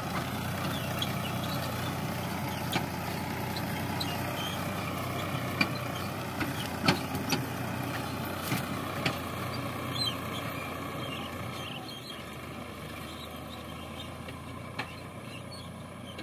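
Sonalika DI 745 tractor's diesel engine running steadily while pulling a heavily loaded trailer, with a few sharp knocks midway. The engine sound fades over the last few seconds as the tractor moves away.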